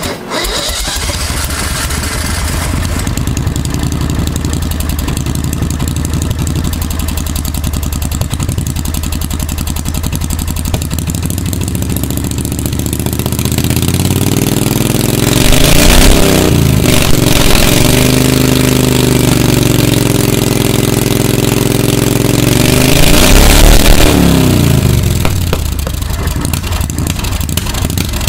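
Briggs & Stratton V-twin engine in a golf cart, running through short open twin exhaust pipes after firing up right at the start, at its first start after sitting six months. It runs steadily, then is revved up and back down twice, about halfway through and again near the end.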